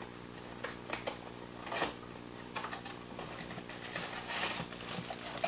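Hands handling small toy packaging: light rustling and clicking of paper and plastic, a little louder about two seconds in and again after four seconds, over a steady low hum.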